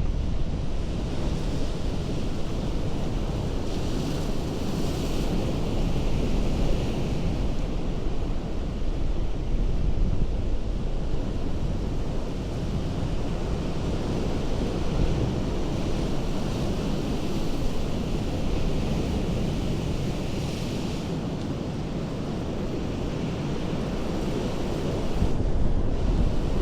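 Ocean surf breaking on a rocky coast: a steady low rumble of water, with the hiss of breaking spray swelling up twice, and wind buffeting the microphone.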